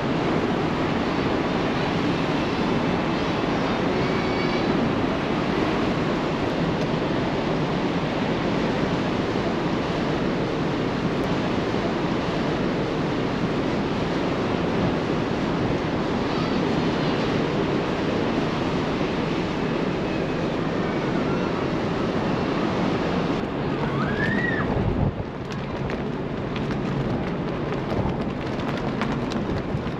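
Steady rush of wind and sea from a large ferry under way, with wind buffeting the microphone. A short high squeak rises and falls near the end, just before the noise drops slightly.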